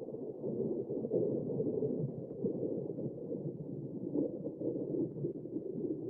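Rolling rumble of the vintage 'Castle Thunder' sound effect, a long thunder roll slowly dying away, deep and muffled with no crisp highs.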